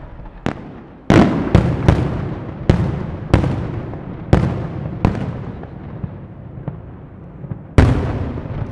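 Aerial firework shells bursting in a display: about nine sharp bangs at irregular intervals, each trailing off in a long echo, with one of the loudest near the end.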